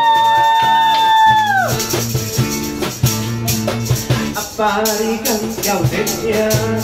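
Live acoustic band. A sung note is held for about the first second and a half and then ends, leaving acoustic guitar and electric bass playing a steady beat with a rattling, shaker-like percussion.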